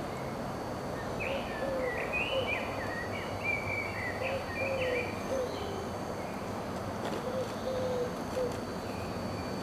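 Birds calling outdoors: quick chirping notes for the first half or so, with lower, short gliding calls repeating until near the end, over a steady background hum.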